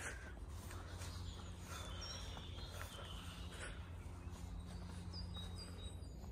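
Quiet outdoor woodland ambience: a low steady rumble with a few faint, high bird chirps about two seconds in and again near five seconds.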